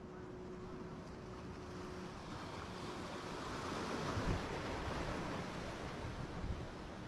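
Ocean surf washing against the inlet: a wave swells up about halfway through and eases back down, with two brief low thumps.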